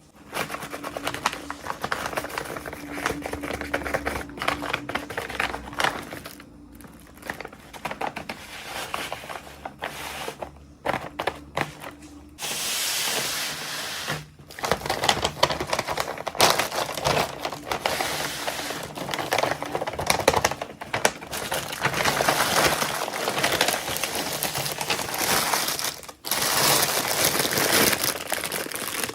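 Plastic packaging crinkling and rustling as it is handled and torn open, with many small clicks and crackles and a steadier rustle of about a second and a half near the middle.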